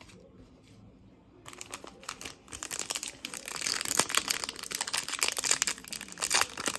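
Crinkling of a foil trading-card pack wrapper being torn open and handled, starting about a second and a half in and going on as a dense crackle.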